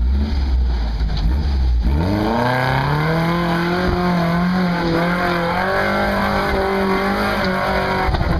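Lifted Toyota pickup's engine revving hard under load as the truck climbs a steep dirt ledge. It runs low at first, then about two seconds in the pitch climbs sharply and is held high with a wavering pitch, dropping off near the end.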